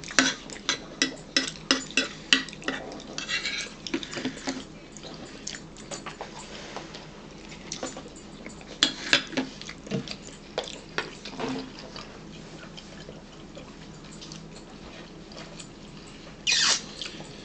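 Eating sounds: a spoon clinking and scraping against a bowl along with chewing, a quick run of clicks in the first few seconds, then scattered ones. Near the end, a short rush of noise as a drink is taken from a plastic water bottle.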